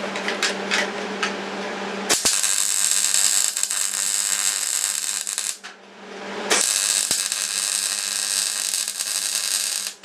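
Welding arc on the chair's metal frame, crackling and hissing in two runs of about three and a half seconds each. Each run starts and stops abruptly, with a short pause between them, over a steady background hum.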